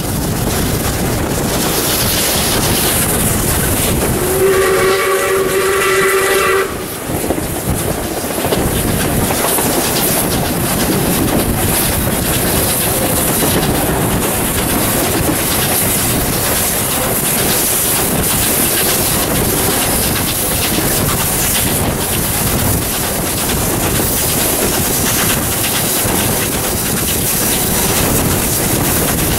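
Steam locomotive 621, a South Australian Railways 620-class Pacific, hauling its train, heard from a carriage window: steady running noise with wheels clattering over the rail joints. About four and a half seconds in, the steam whistle gives one blast of about two seconds.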